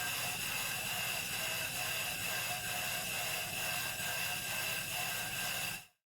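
Brake lathe turning and cutting a vintage Volkswagen Beetle brake drum: a steady mechanical whir with a steady high tone over it, cutting off suddenly near the end.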